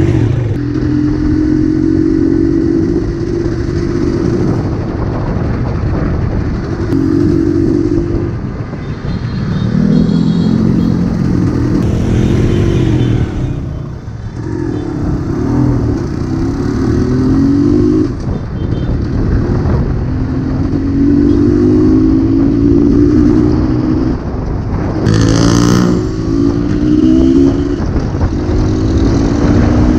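Jawa Type 593 250cc two-stroke motorcycle engine running under way, its pitch climbing again and again as it accelerates through the gears. A brief loud sound cuts across it about 25 seconds in.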